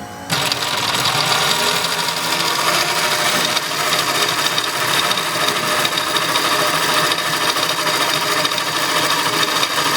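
Computerized zigzag industrial sewing machine running steadily at speed, stitching out a decorative pattern. It starts up just after the beginning.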